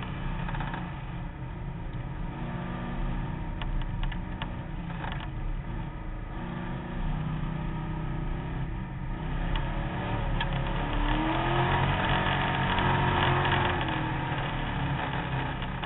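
Competition car's engine heard from inside the roll-caged cabin, running and revving, with a few sharp knocks from the body. The engine rises in pitch a little past ten seconds in and is loudest for the next few seconds.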